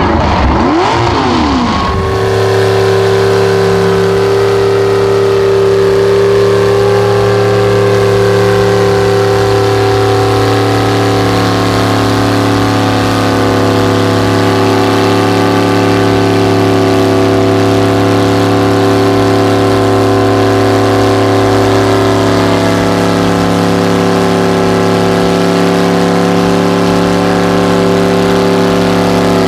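Ford mud truck's engine running at a steady, unchanging pitch as the truck crawls through deep mud on huge tires. For about the first two seconds, another Ford truck's engine revs, rising and falling in pitch.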